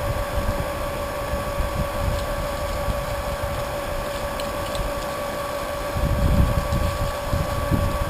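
Small electric pump running steadily with a constant whine as it pumps wort through a plate chiller. Wind rumbles on the microphone, strongest about six seconds in.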